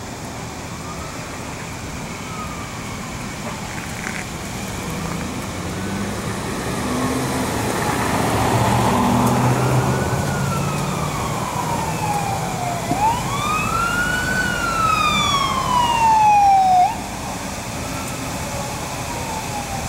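Emergency vehicle siren wailing in slow rising and falling sweeps, getting louder, with its strongest sweep near the end before it cuts off abruptly. A vehicle engine runs low underneath around the middle.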